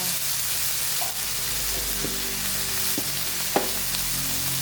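Small chicken pieces sizzling as they sauté in hot oil in a pan, stirred with a utensil that clicks against the pan a few times, sharpest about three and a half seconds in.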